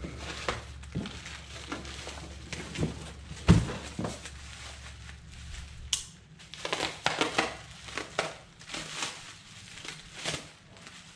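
Bubble-wrap and plastic packaging being pulled off and crumpled by hand, with cardboard box handling: irregular crinkling and crackling, and one sharp knock about three and a half seconds in. A low steady rumble runs under the first half and stops about six seconds in.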